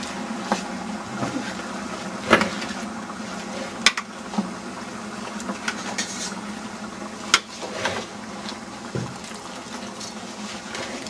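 Wooden spoon stirring cut raw tomatoes in a large aluminium stockpot, knocking sharply against the pot several times, over the steady rushing of the propane burner beneath it.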